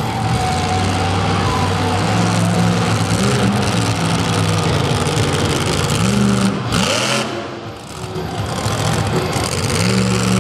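Monster truck engine running loud, revving up and easing off several times. A brief rush of noise comes about seven seconds in, followed by a short drop in the engine sound before it builds again.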